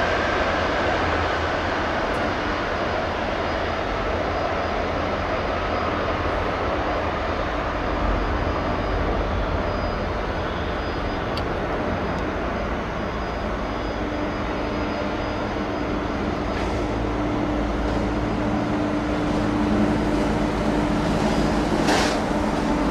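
Jet engines of a British Airways Boeing 747-400, Rolls-Royce RB211s, running at low taxi power as the airliner taxis, a steady jet noise. A faint steady hum joins about two-thirds of the way through.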